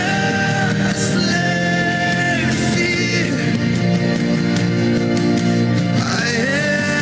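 Christian worship song: a singer holding long notes that slide between pitches over a steady instrumental accompaniment.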